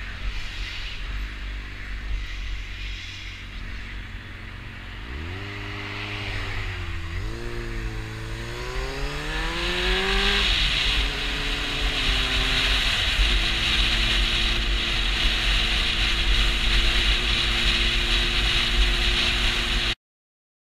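Honda CB600F Hornet's inline-four engine pulling away and accelerating, its pitch rising, dipping once at a gear change and climbing again. It then settles to a steady note at cruising speed under loud wind noise on the microphone. A low wind rumble runs underneath, and the sound cuts off just before the end.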